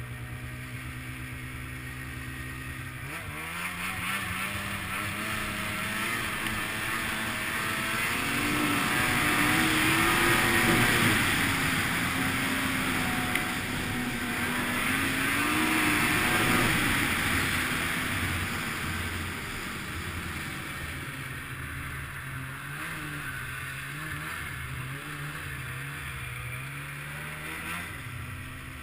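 Polaris snowmobile engine heard from the rider's seat: it runs steadily, then speeds up about three seconds in and runs hard with a wavering pitch, loudest through the middle, before easing back to a lower, uneven throttle.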